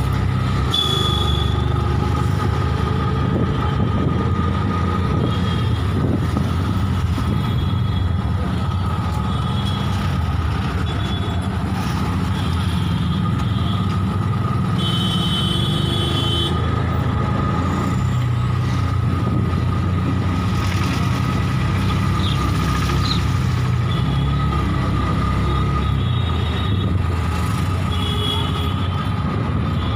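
Steady engine drone and road noise of a slow-moving vehicle, heard from on board, with a thin steady whine above it. Short high-pitched beeps sound now and then.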